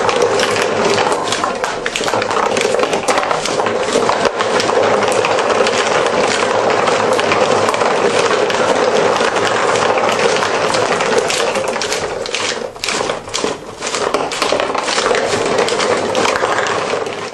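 Marbles clattering through a hand-cranked cardboard escalator marble run: a loud, continuous rattle of many small clicks as the marbles ride up the escalator steps and roll along the cardboard tracks, thinning briefly a few times near the end.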